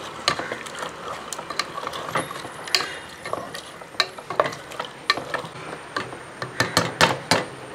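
Wooden spatula stirring chunks of beef liver in thick spice paste inside an aluminium pressure cooker, scraping and knocking irregularly against the pot's bottom and side. The knocks come quicker and louder near the end.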